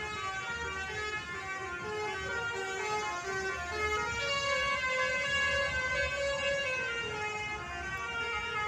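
Telolet horns, multi-tone air horns, playing a tune of quick stepped notes, then holding a long chord from about four seconds in for nearly three seconds before stepping through notes again.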